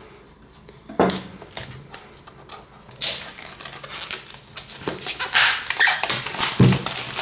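Clear plastic shrink-wrap being torn and peeled off a cardboard product box, crinkling and crackling, denser from about three seconds in. A dull thump near the end.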